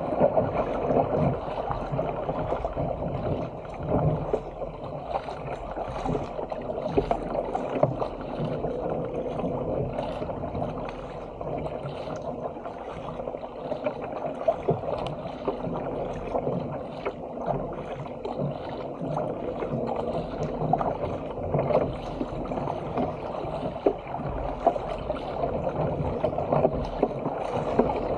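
Water rushing and splashing along the hull of a Stealth 457 fishing ski as it is paddled downwind through open-sea chop, with the paddle blades dipping in at uneven intervals.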